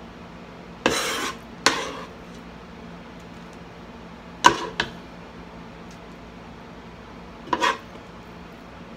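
A spoon scraping and clinking against a saucepan as thick no-bake cookie mixture is scooped out, in a few short bursts a couple of seconds apart, the first a longer scrape.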